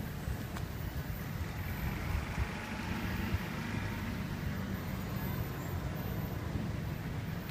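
Steady, distant rumble of an Amtrak passenger train running away down the track.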